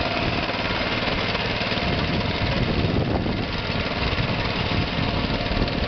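Walk-behind power tiller's engine running steadily under load as the tiller ploughs through a flooded paddy field.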